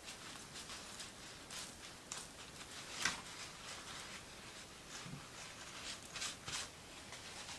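Hands handling paper on a craft card: faint rustling and rubbing, with a few short crinkles and light taps scattered through.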